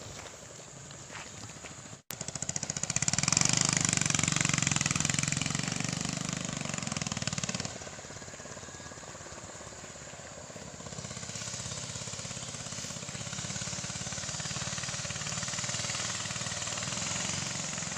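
A small engine running with a fast, even putter, starting loud just after a brief cut about two seconds in, dropping back at about eight seconds and swelling again slightly later on.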